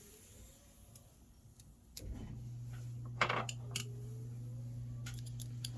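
Small screws clicking and tapping against a 3D-printed plastic rim plate as they are fitted into its holes, a few sharp clicks in the second half. A low steady hum comes in about two seconds in.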